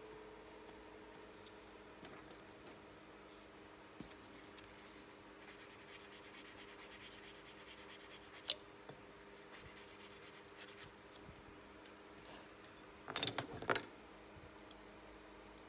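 A thin wooden model spoke rubbed back and forth on a small sanding board in quick strokes midway through, with a sharp click after it. Near the end comes a short, louder burst of scraping and rubbing as the spoke is handled. A faint steady hum runs underneath.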